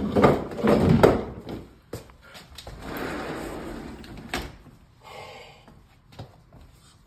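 Sliding glass patio door being opened: a few loud knocks at the start, then the door rolling along its track for a couple of seconds, ending in a sharp click.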